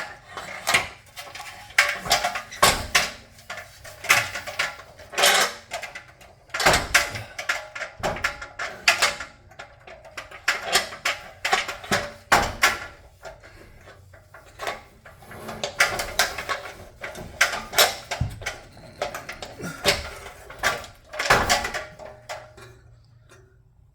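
A metal garage-door hurricane brace being handled and fitted: irregular clanks, knocks and scrapes of metal on metal and on the concrete floor as its base is set into the floor holes and it is lined up with the bracket above the door.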